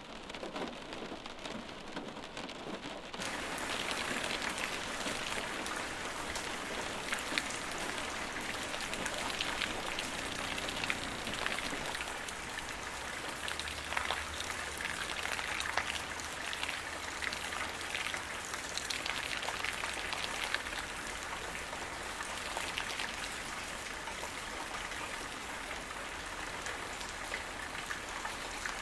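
Steady rain falling, with the ticks of individual drops striking a surface. About three seconds in, it becomes slightly louder and fuller.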